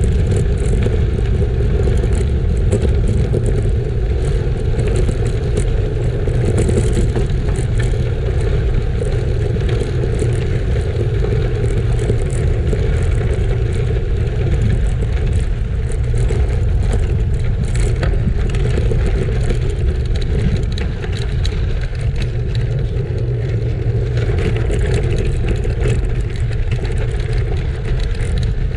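Steady wind buffeting a moving microphone, mixed with the rumble and crunch of road-bike tyres rolling over gravel.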